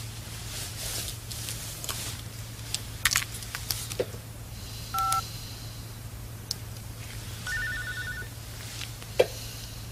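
A mobile phone being dialled: a few handset clicks, then a single short keypad beep about halfway through, then a rapidly pulsing ringing tone near the end, and one sharp thump just before the end.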